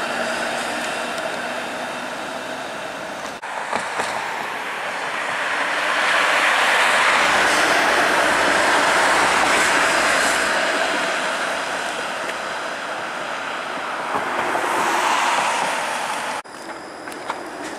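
Bombardier Flexity Outlook low-floor streetcars rolling past on street track, mixed with passing car traffic. The loudest part is a streetcar going by close, which swells and fades over several seconds in the middle. The sound breaks off sharply twice where the shot changes.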